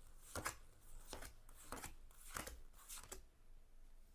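Tarot cards being handled and laid down one after another: about six faint, quick card-on-card slides or flicks at roughly half-second intervals, stopping about three seconds in.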